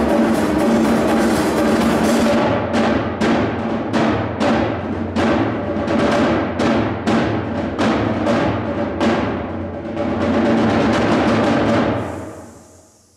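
Percussion ensemble playing drums: dense playing, then a run of sharp, evenly spaced accents at about three a second, then a sustained roll that dies away near the end.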